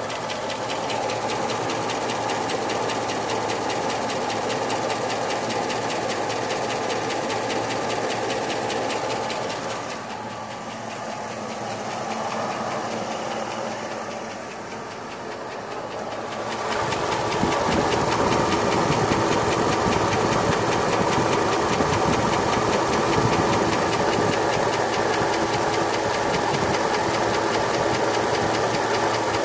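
Whipple-supercharged 5.3L LS V8 idling steadily, fully warmed up, with a rapid, even ticking from its rebuilt valve train (hydraulic roller lifters, trunnion rockers) that stands out above the rest of the engine. It gets louder a little past halfway.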